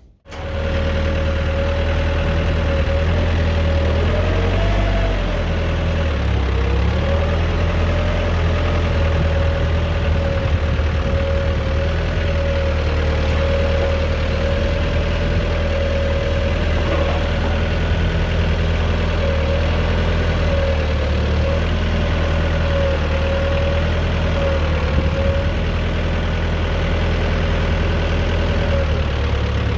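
A motor vehicle's engine running steadily at an even, low speed, making a deep drone with a higher whine that wavers slightly over it.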